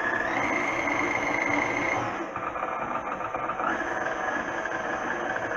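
Electric tilt-head stand mixer running, its motor whining steadily as the beater works stiff tamale masa dough. About two seconds in, the whine drops slightly in pitch and gets a little quieter.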